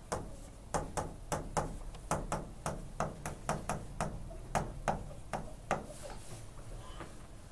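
Handwriting on a board: the writing tip strikes and taps against the board with each stroke, giving irregular sharp clicks about three a second that stop about six seconds in.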